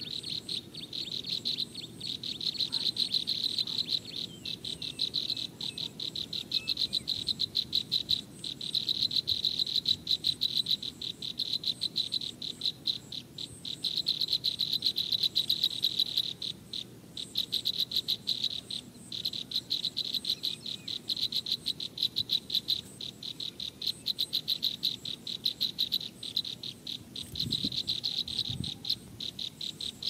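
Crickets chirping in a dense, rapid, high-pitched trill that swells and eases every few seconds. Two dull low thumps come near the end.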